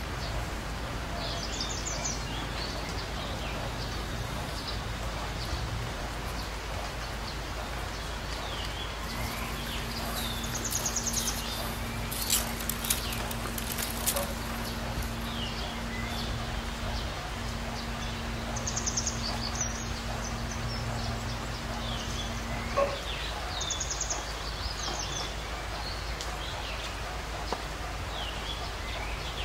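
Outdoor ambience with small birds chirping at intervals. A steady low hum runs through the middle. A few brief crackles come between about 12 and 14 seconds, as dry fallen leaves are handled.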